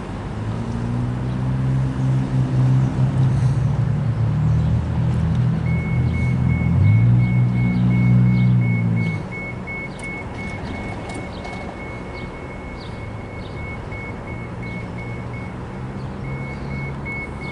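Railroad grade crossing bell starts ringing about six seconds in, a rapid high ding repeating steadily. Under it at first, a loud low engine hum rises in pitch around seven seconds, then drops away about nine seconds in.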